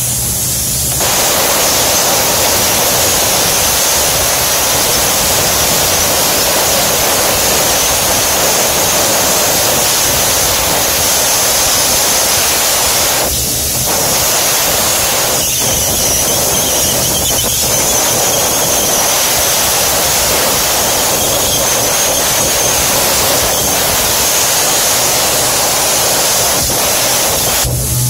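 Pressurized nitrogen jetting from a blow nozzle to blow out a matted coil: a loud, steady rushing hiss, easing briefly about halfway through.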